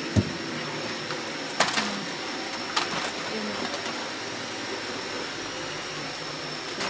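Steady household hum and hiss with a faint high whine, broken by a low knock just after the start and two sharp clicks about a second and a half and three seconds in: handling of the phone and of packets on a wire shelf rack.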